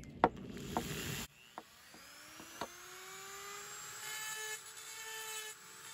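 A sharp knock in the first second, then a small rotary multi-tool spins up with a rising whine and runs steadily, its note pulsing about twice a second as the carbide cutting bit grinds the mushroomed steel ends off the base of an old hatchet handle.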